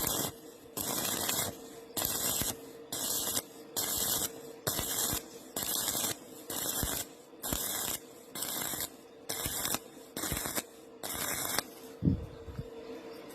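Welding arc hissing and crackling in short repeated bursts, a little over one per second, as the weld is laid in quick stitches; the bursts stop about twelve seconds in. A steady hum runs underneath.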